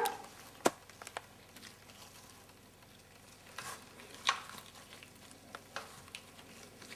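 Faint wet handling sounds of latex-gloved hands pressing raw bacon strips onto a raw meatloaf in a metal baking tray, with a few short sharp clicks scattered through.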